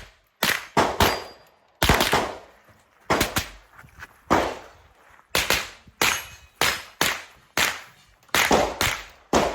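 A custom .22 rimfire competition rifle firing a rapid string of shots, often in quick pairs about a quarter-second apart, each a sharp crack with a short echo.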